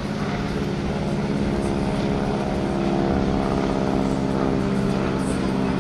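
Pratt & Whitney radial engine of a 1943 Stearman biplane running steadily in flight, a droning propeller-driven engine sound that grows slightly louder about halfway through.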